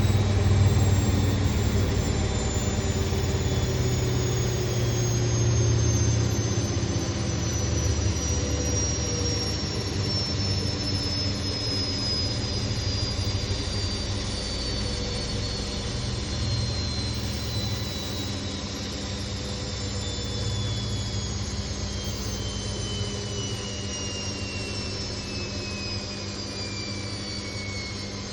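Candy Grand O Vita GVS168D3 front-loading washing machine winding down from its final spin, the motor's high whine falling steadily in pitch as the drum slows, over a low hum that slowly grows quieter. The spin speed was held back by an unbalanced load.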